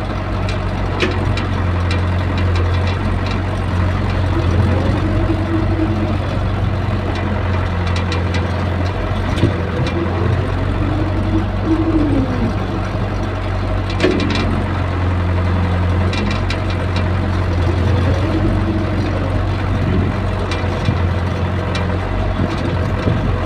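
Hydraulic excavator's diesel engine running steadily, heard from inside the operator's cab, with a whine that rises and falls every few seconds as the boom and bucket are worked. A few sharp knocks stand out above it.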